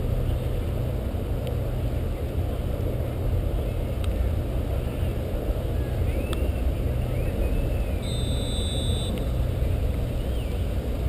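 Steady low rumbling outdoor background noise, with a short high whistle about eight seconds in and a few faint high calls.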